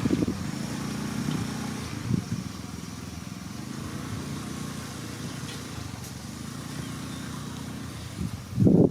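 Heavy diesel engine of earthmoving equipment running steadily at low revs, with the sound surging louder near the end.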